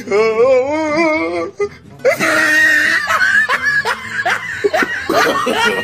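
Dubbed-in comedy audio: a wavering, wobbling note for about a second and a half, then, after a short pause, laughter over music.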